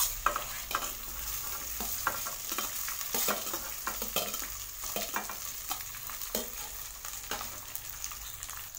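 Hot oil tempering sizzling in a kadai as cooked rice is tipped in on top, with scattered light taps and scrapes as the rice is pushed off a metal plate into the pan.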